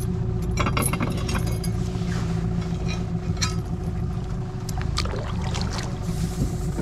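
Outboard motor idling with a steady hum, while a run of sharp metallic clinks and knocks, then a few single ones, sound off the metal boat as the anchor and its rope are handled and lowered over the side.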